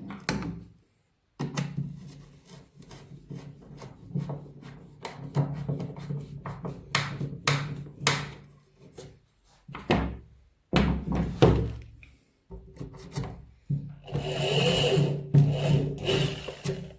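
Homemade disc sander built on a bench grinder, running with a steady hum while a workpiece is pressed against the sanding disc in short, repeated rasping strokes. A longer, harsher stretch of sanding comes about fourteen seconds in, and the sound breaks off abruptly a few times.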